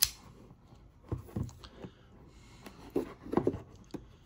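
A folding pocket knife clicks sharply as it is handled at the start, then its blade scrapes and snicks in short strokes as it cuts at the edge of a product box to open it.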